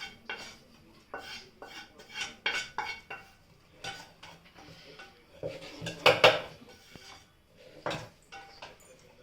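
A spoon clinking and scraping in a bowl as dosa batter is mixed, in irregular short knocks, with a louder cluster about six seconds in.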